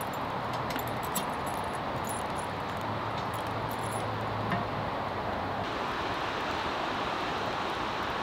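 Light metallic clinks of a pot's handle against a cooking tripod's chain during the first few seconds, over a steady rushing background noise.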